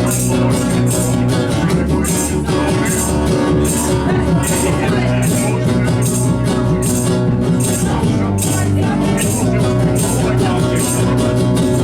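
A rock trio playing, with drums and sustained low bass notes; a hi-hat or cymbal strikes steadily about twice a second.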